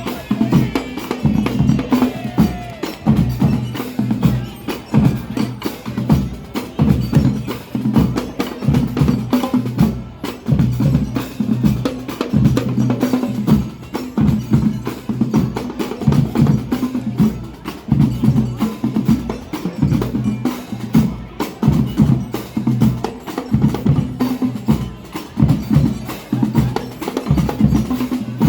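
School marching band playing: fast, dense drumming with low held notes underneath.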